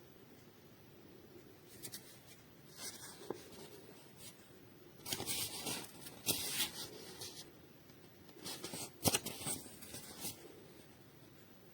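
Irregular rustling and scraping handling noises with a few sharp clicks, in two louder spells.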